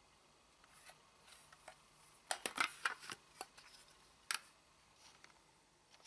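Handling of a small plastic toy RC helicopter and its remote controller: a quick cluster of sharp clicks and rattles about two and a half seconds in, then a single sharp click a little after four seconds.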